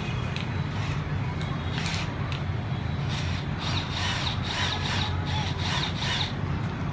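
A DeWalt DCD777's 13 mm keyless chuck is twisted by hand, giving a run of ratcheting clicks about three a second in the second half as it tightens: the clicking of its self-locking mechanism gripping the bit. A steady low hum lies underneath.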